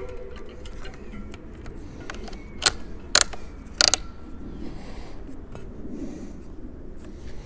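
Ratchet strap of a Yakima FrontLoader roof bike rack pulled through its ratcheting buckle around the rear wheel: three sharp clicks about half a second apart, near the middle.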